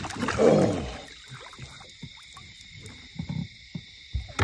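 A person's brief wordless vocal sound in the first second, then quiet handling with a few faint knocks.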